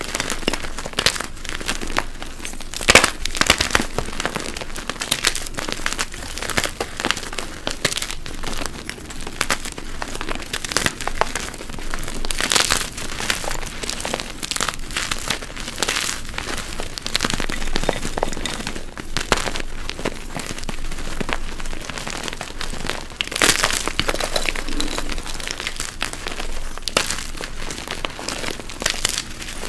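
Dyed gym chalk blocks being crushed, a steady run of crunchy, powdery crackling with a few louder crunches about three, twelve and twenty-three seconds in.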